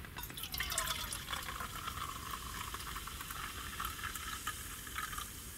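Carbonated canned grape chuhai being poured from the can into a stainless steel mug, a steady pour with a fine crackling fizz.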